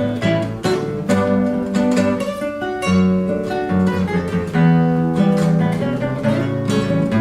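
Two acoustic guitars, a six-string and a seven-string violão, playing choro together: quick plucked melody notes over a moving bass line.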